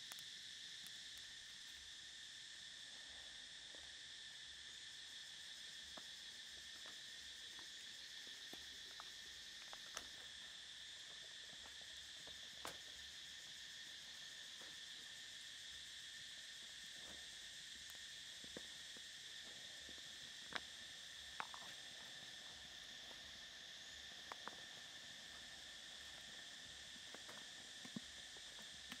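A steady, faint chorus of insects, two unbroken high drones, with scattered sharp clicks every few seconds.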